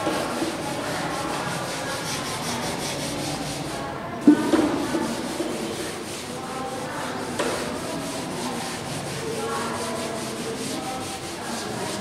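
Chalkboard eraser rubbing chalk off a blackboard in repeated wiping strokes. A sharp knock about four seconds in is the loudest sound.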